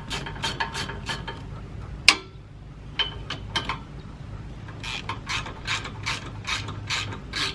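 A hand socket ratchet wrench clicks in quick even runs as it turns out the bolts of a winch mounting plate. There is a short run at the start, a single loud sharp snap about two seconds in, and another steady run of clicks from about five seconds in.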